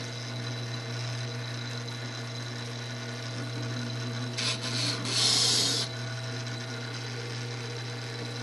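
Tormek T-3 wet grinder running with a steady low hum while a chisel held in its jig is ground on the wet stone. A louder scraping of steel on stone rises about four and a half seconds in and lasts about a second and a half.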